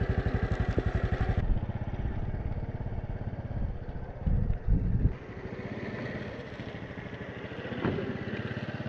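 Small 125cc-class motorcycle engine running at low speed with an even pulsing exhaust, with two short louder surges about four to five seconds in.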